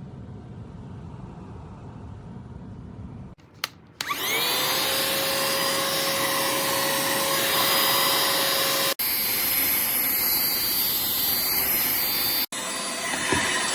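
A low rumble, then a click and the CODN handheld cordless vacuum's small high-speed motor spinning up to a loud, steady whine. The sound cuts out abruptly twice and comes back each time with a different pitch.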